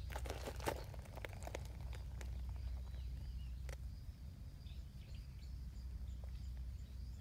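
Dry leaf litter crackling and rustling in short clicks for the first couple of seconds as someone moves and crouches on it, then a quieter outdoor background with faint, repeated high bird chirps.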